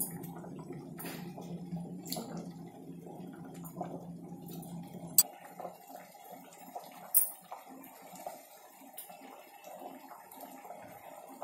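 Thick dal bubbling as it simmers in a pot on a gas stove, with a few small clicks. A low steady hum underneath cuts off suddenly about five seconds in.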